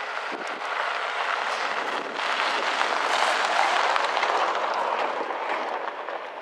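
A van driving past close by on a gravel track, its tyre and engine noise swelling to a peak about halfway through and then fading.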